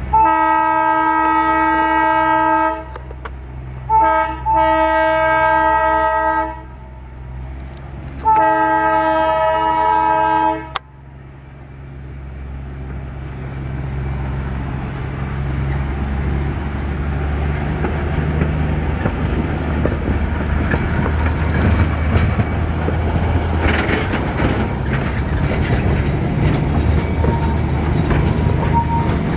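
Darjeeling Himalayan Railway narrow-gauge toy train sounding three long horn blasts, each about two and a half seconds, over the low steady running of its locomotive. Then the rolling of its coaches on the rails grows louder for several seconds as the train comes by close, with sharp metallic clatter.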